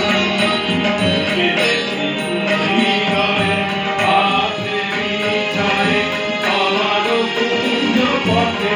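A group of women singing together to a harmonium, with tabla keeping time.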